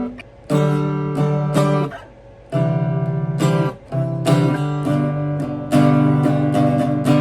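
Solo guitar improvising: chords strummed, left to ring and re-struck, with two brief pauses in the first half, growing fuller and louder near the end.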